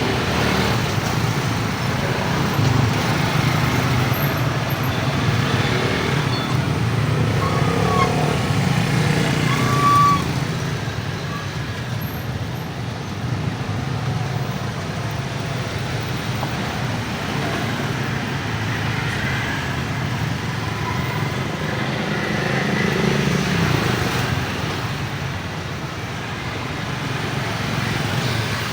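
Steady street noise with traffic going by, and a couple of short beeps about eight and ten seconds in.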